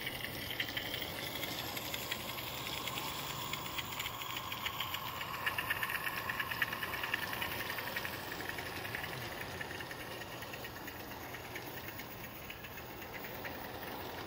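Catatonk Loco Works 14-ton Climax live-steam model locomotive running under steam: a fast, even run of exhaust beats with steam hiss, loudest as it passes close about six seconds in, then slowly fading as it moves away.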